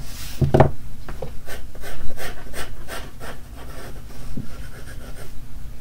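Pencil drawing on paper, heard close. First a brushing rub as a hand sweeps across the sheet, then a run of short, scratchy pencil strokes, about three a second.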